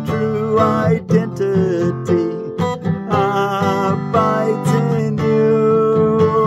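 Acoustic guitar strummed under a sung melody, the voice holding long notes.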